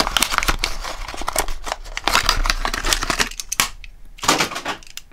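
Toy packaging of card and plastic being handled and opened to free a die-cast model: a dense run of sharp clicks and crinkles that thins out after about three seconds, with a couple of louder bursts near the end.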